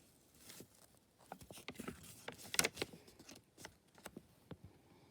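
Paper pages of a picture book being handled and turned: a run of short rustles and light taps, loudest about two and a half seconds in.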